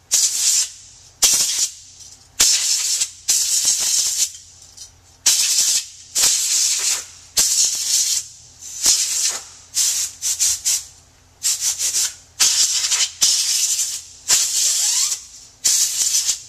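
Canned compressed air sprayed through a straw nozzle in about fifteen short bursts of hiss, some of them quick stuttering puffs, blowing dust out of a laptop's cooling fan assembly.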